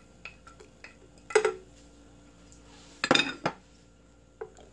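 Dishware clinking as chopped green onion is scraped off a plate into a stainless steel soup pot: light ticks of a utensil on the dish, then two louder ringing clinks, about a second in and again about three seconds in.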